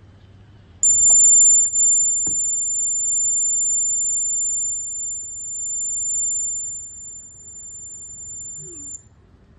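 Piezo buzzer of a homemade gas leak alarm sounding one continuous high-pitched tone. It starts about a second in and cuts off near the end, its loudness wavering. It signals that the sensor has detected gas.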